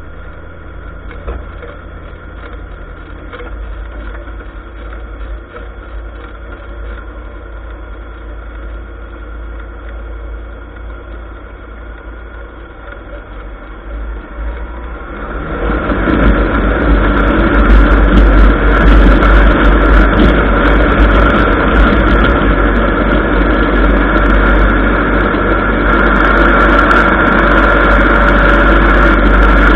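ULPower piston engine of a Zenith 750 light aircraft, heard from inside the cabin. It runs steadily at low power, then about halfway through swells to a much louder, steady full-power run for the takeoff roll.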